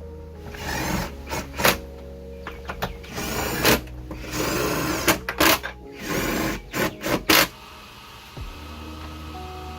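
Tools at work on a steel tire carrier: short bursts of mechanical whirring mixed with sharp clicks and metal knocks, which stop about seven and a half seconds in, leaving a steady low hum.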